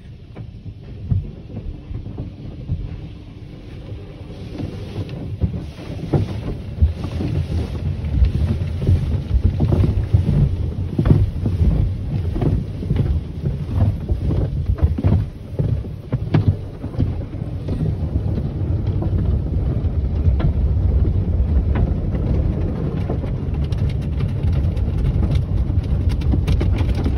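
Automatic car wash heard from inside the car: water spray drumming on the body and glass while the cloth brushes slap and rumble across the windshield. It grows louder about four seconds in, with many sharp slaps from then on.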